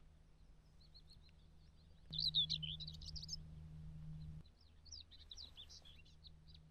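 Common whitethroat singing: a brief, dense, scratchy warble of high notes about two seconds in, then more short scratchy phrases near the end.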